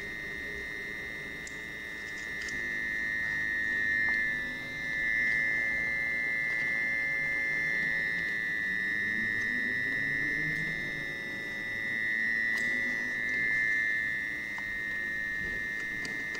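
Steady high-pitched electronic tone from a homemade sound-sculpture circuit played through a loudspeaker, swelling and dipping in loudness, with fainter lower tones wandering up and down beneath it and a few faint clicks.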